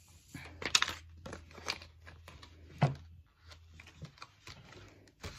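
Paper crinkling and crackling as an adhesive shipping label is handled and peeled from its backing sheet, with a louder thump about three seconds in.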